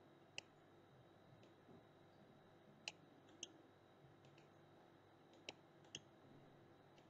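Faint computer mouse clicks, about six spread unevenly over several seconds, against near silence.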